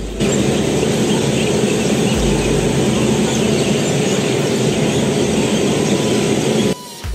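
Locomotive running as it moves slowly up to a coach for coupling: a loud, steady rumble and hiss with no clear tone. It starts abruptly and cuts off suddenly near the end.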